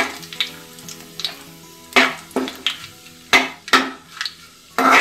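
Steel ladle clinking and scraping against a stainless-steel kadhai while stirring kalonji seeds, bay leaves and dried red chillies tempering in hot oil, with a faint sizzle. There are several sharp clinks, and the first one rings briefly.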